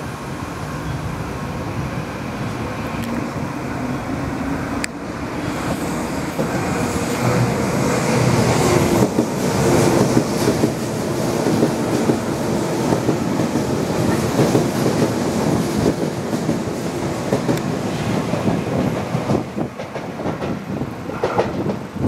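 A Tobu Railway electric train runs through the station platform at speed without stopping. Its running noise builds as it approaches, then the wheels clatter over the rail joints for several seconds as the cars pass, and the sound falls away near the end.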